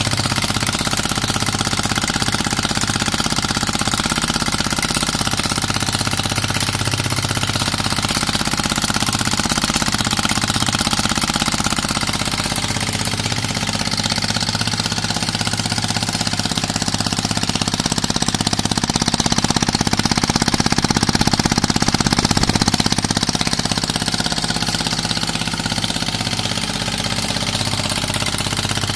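30cc two-stroke strimmer engine running steadily on compressed air. It makes a fast, even, jackhammer-like chatter as a cam-operated trigger air gun pulses air into the spark plug hole and the air puffs out of the exhaust port each revolution. It gets a little louder about two-thirds of the way through.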